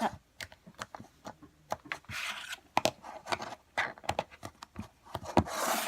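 Slime and plastic slime tubs being handled: a string of small sticky clicks and pops, with two longer scraping rustles, one about two seconds in and one near the end.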